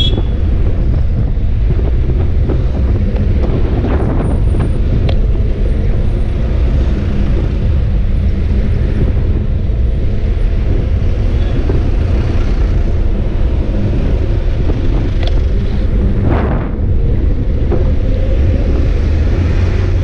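Steady low wind rumble on the microphone of a bicycle-mounted action camera, mixed with the engines of slow road traffic close alongside.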